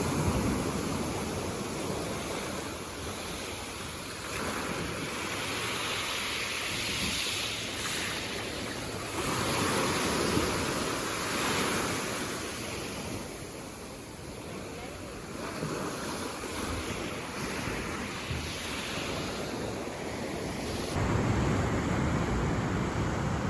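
Ocean waves breaking and washing up a beach, the surf swelling and fading in slow surges, with wind rumbling on the microphone.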